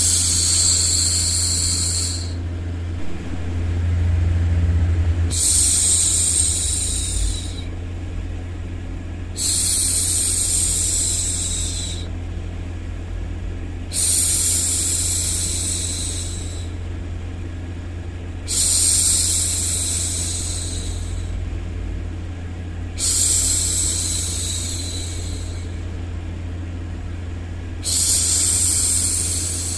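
A woman shushing for a baby, one drawn-out "shhh" about every four and a half seconds, each lasting about two seconds. Under it runs steady white noise with a low hum.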